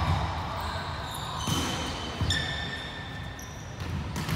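Sports shoes squeaking on a hardwood court floor: several short, high squeaks at different pitches, with a couple of dull knocks, one about a second and a half in and one near the end.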